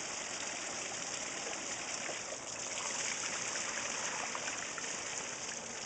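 Water trickling steadily over a newly built pond waterfall into the pond. The flow is thin: the pump is delivering only a little water.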